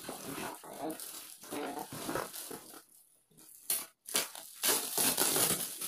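Faint crinkling and rustling of a shiny plastic-wrapped box being handled, with tape being peeled off by hand. The sounds come in short scattered bursts and are busiest a little after the middle, with low voices now and then.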